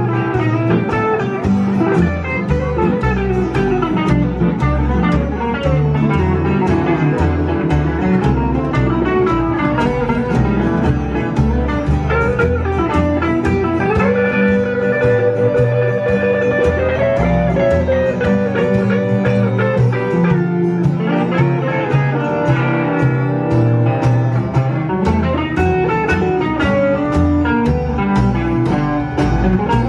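A live honky-tonk band plays an instrumental break: a Telecaster-style electric guitar over a slapped upright bass keeping a steady beat. About halfway through, a long note is held and bent.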